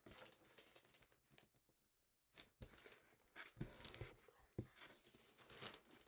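Faint rustling and crackling of a square sheet of origami paper being folded and creased by hand, with a few sharper crinkles in the second half.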